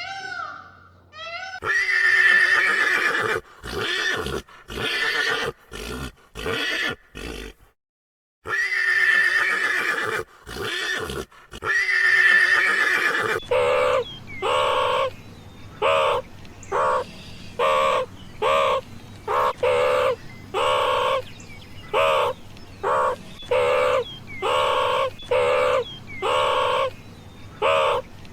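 A horse whinnying, a long call followed by shorter ones, heard twice; then a long run of short, evenly spaced animal calls, about one and a half a second.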